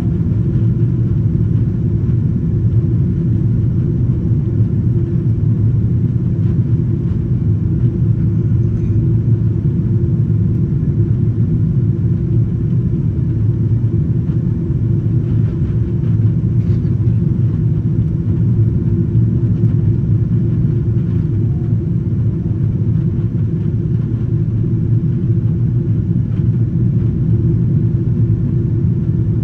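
Steady low rumble of a Boeing 777-200's jet engines and airflow, heard inside the passenger cabin as the airliner climbs after takeoff.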